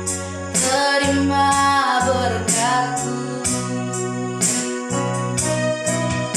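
Church worship music: a voice singing over keyboard and band accompaniment, with held chords and a steady beat.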